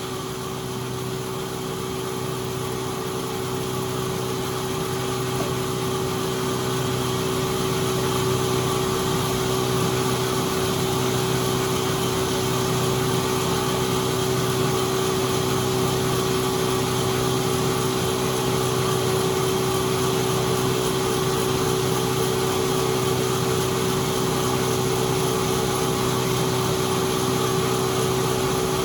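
Sawmill machinery running steadily, with a constant motor hum that grows a little louder over the first several seconds and then holds level.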